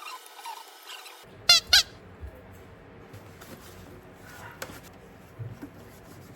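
Two short, loud, high-pitched squeaks in quick succession, followed by a few faint knocks and rustles.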